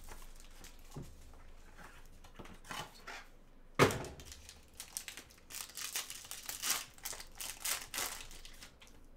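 Plastic shrink-wrap being torn and crinkled off a trading card box, with one sharp knock a little under four seconds in, then a longer run of plastic wrapper crinkling as the pack is pulled out.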